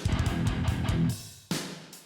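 Background rock music: electric guitar playing stop-start riffs with drums, each chunk hitting hard and fading before the next.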